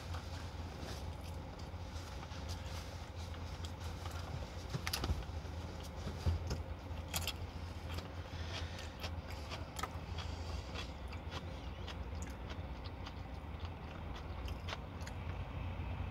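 Close-up eating sounds: biting into and chewing crispy fried chicken, with scattered short crunches and clicks, the sharpest about five and seven seconds in. A steady low hum runs underneath.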